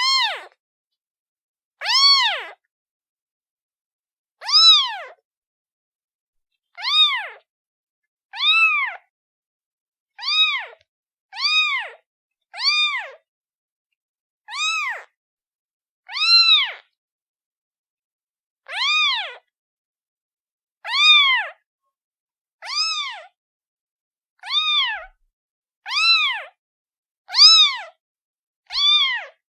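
Kitten meowing over and over: high, clear calling meows, each rising then falling in pitch, about one every one and a half to two seconds.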